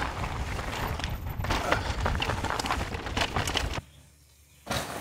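Mountain bike riding a rough dirt trail: tyre and wind rumble on the camera microphone with scattered rattles and knocks from the bike. About four seconds in the sound cuts out abruptly for under a second, then resumes.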